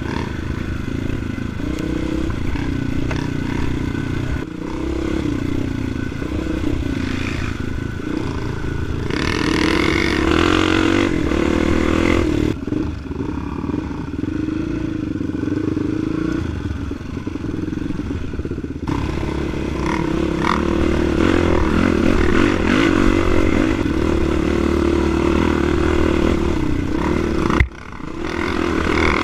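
Dirt bike engine running and rising and falling with the throttle, close up from the rider's own bike, with clatter from riding over a rough dirt track. The engine sound drops out sharply for a moment near the end.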